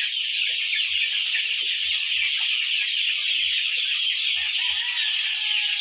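A flock of young gamefowl cockerels clucking and calling softly while they feed, over a steady high-pitched buzz, with scattered soft low knocks.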